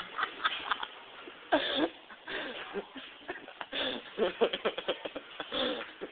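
Indistinct voices talking, too muffled to make out words, with one louder sliding vocal sound about a second and a half in.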